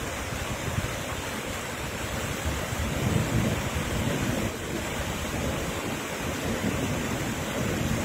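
Muddy floodwater rushing down a rocky wadi in spate, a steady noisy roar, with wind gusting on the microphone.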